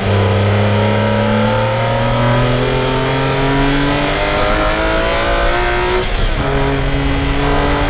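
BMW E46 M3's S54 straight-six at full throttle, heard from inside the cabin, rising steadily in pitch as it revs out toward about 7,000 rpm. About six seconds in, the pitch drops with an upshift and starts climbing again.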